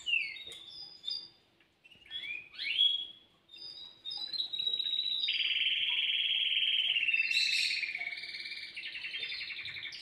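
Caged songbirds: a few short chirps and quick gliding notes, then a long, fast trilling song from about four and a half seconds in.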